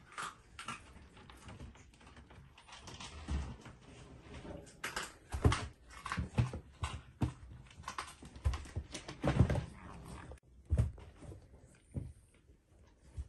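Cats playing against a wooden door: a kitten batting and clawing at towels hanging on it, then two cats tussling on the floor, making irregular scratches, knocks and scuffles, loudest in the middle.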